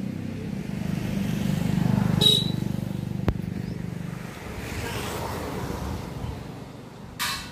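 A motor vehicle's engine passing by: a low, pulsing engine note that grows louder to about two seconds in and fades away by about four seconds. A single sharp click sounds near the middle.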